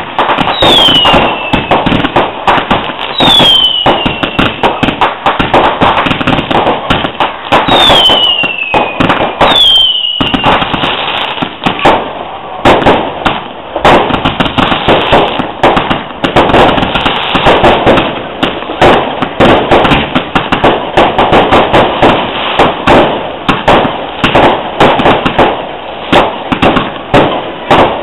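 Fireworks display: rapid bangs and dense crackling of aerial shells bursting, loud throughout. Several short whistles falling in pitch sound during the first ten seconds or so.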